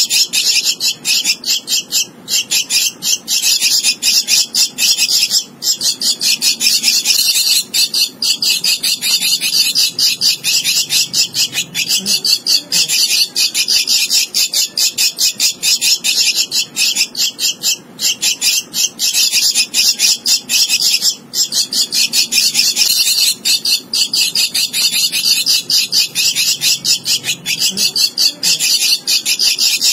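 Javan myna nestling begging for food: a rapid, nearly continuous stream of short, high calls with brief breaks every few seconds.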